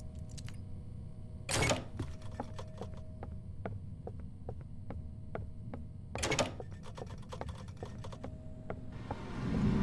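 Glitching car door making irregular rapid clicks and ticks, with two louder short buzzes about one and a half seconds in and again about six seconds in, over a low steady hum. Near the end a louder rumble builds up.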